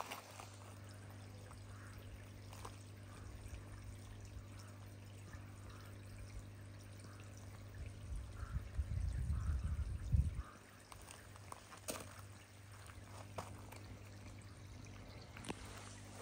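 Pond water trickling and bubbling where an aerator's air bubbles rise to the surface, over a steady low hum. A low rumble comes in for about two seconds around the middle.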